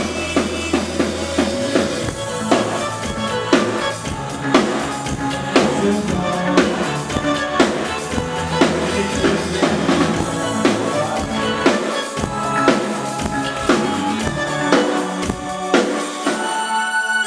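Synth-pop band playing live on a PA during a soundcheck: a drum kit keeps a steady beat with a strong hit about once a second over held synthesizer and bass notes. The drums drop out near the end, leaving the held synth chord.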